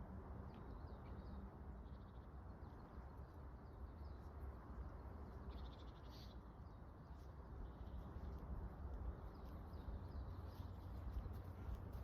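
Distant road traffic as a steady low rumble, with faint bird calls now and then.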